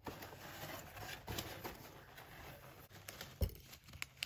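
Cardboard box being opened by hand, with rustling of the flaps, packing peanuts and a paper card as the card is lifted out. There are a few light clicks and one sharp knock about three and a half seconds in.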